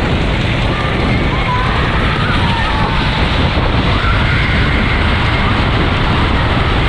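Wooden roller coaster train rumbling and rattling along its track at speed through a tunnel, with rushing wind on the on-board microphone.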